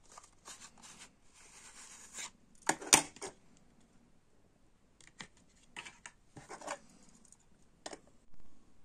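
A cardboard sleeve scraping and rustling as a frosted plastic cassette is slid out of it, with a sharp cluster of plastic clacks just under three seconds in. Scattered light clicks follow as the bare cassette is handled on a wooden table.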